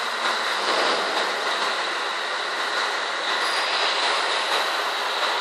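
Steady mechanical din in the cab of a Scania R500 truck as it drives slowly across a ferry's steel vehicle deck: engine, tyres and the echoing noise of the enclosed deck, with a steady high whine and a scatter of faint clicks.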